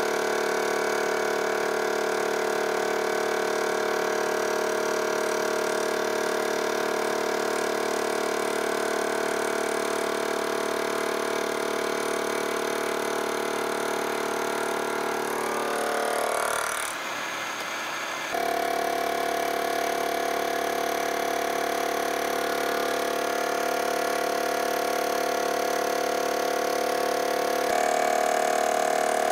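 Vertical milling machine running, its dovetail cutter taking a 60-degree undercut along a cast iron lathe gib: a steady mechanical hum with a few constant tones. About 17 seconds in, it briefly drops in level and then resumes with a changed pitch.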